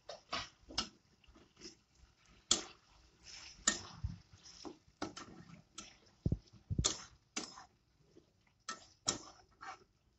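Flat metal spatula scraping and knocking against a kadai while chunks of green banana and potato are stirred through a wet gravy: a dozen or so irregular scrapes, with a few dull thuds along the way.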